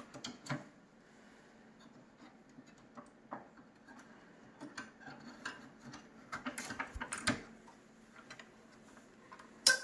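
Scattered light clicks and knocks of plastic and metal parts being handled as the lower roller is worked loose from a Carestream Vita Flex transport mechanism, busier after the middle, with one sharp click near the end.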